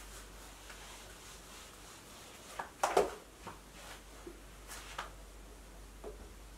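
A few light clacks and knocks of things handled at a whiteboard, the loudest cluster about three seconds in and a smaller one about two seconds later, over low room hiss.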